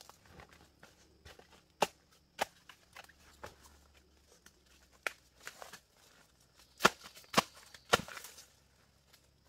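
Dry twigs and bamboo litter snapping and crackling over a light rustle of dry leaves, as someone moves and works through the undergrowth. The sharp snaps come irregularly, with three loud cracks in quick succession near the end.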